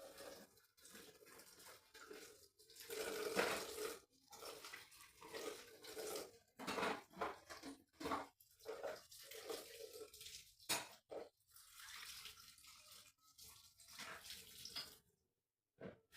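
Irregular splashing and scrubbing of household cleaning with water, in uneven bursts with a few sharp clicks.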